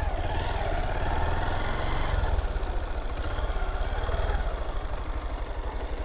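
Honda motorcycle engine running at low speed as the bike rolls slowly and pulls up; in the second half the exhaust pulses become distinct and even as it settles toward idle.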